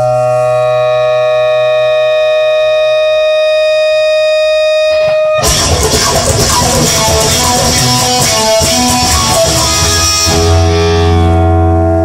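Guitar-led instrumental music. A held chord rings for about five seconds, then a busier passage of quick notes with a beat comes in, and about ten seconds in it settles back into sustained chords over a deep bass note.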